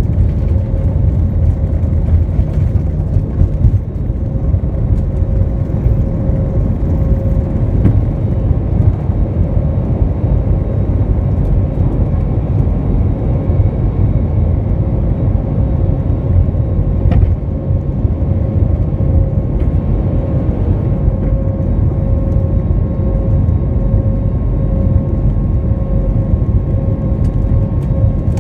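Jet airliner's engines heard from inside the cabin over the wing during the climb after takeoff: a loud, steady rumble with a constant droning tone running through it.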